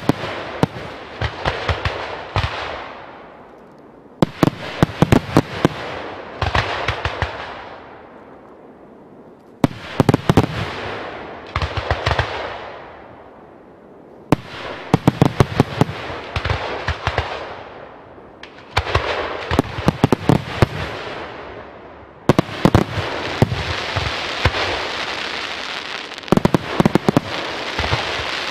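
Fireworks display: a volley of sharp bangs every four to five seconds, each followed by a noisy hiss that fades over a couple of seconds. Over the last six seconds the bursts merge into a continuous dense hiss with more bangs.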